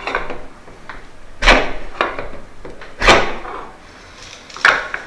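Aluminium-framed door and its frame knocking as the door is levered back past its buckled aluminium stop with a small crowbar: three heavy knocks about a second and a half apart, with lighter taps between.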